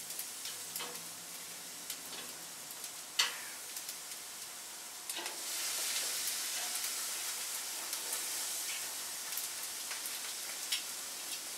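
Food sizzling as it cooks, a steady frying hiss. A sharp click, like a utensil tap, comes about three seconds in, and the sizzle grows louder about five seconds in.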